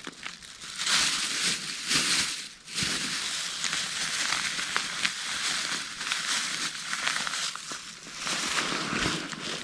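Thin plastic bag crinkling as it is handled and bunched up, in bursts, loudest about one and two seconds in.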